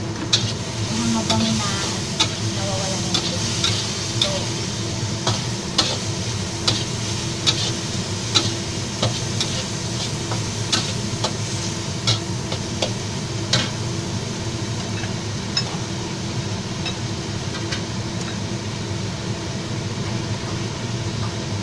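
Pork and celery sizzling in a metal wok while a metal spatula scrapes and clinks against the pan, about once a second for the first two-thirds, then only now and then.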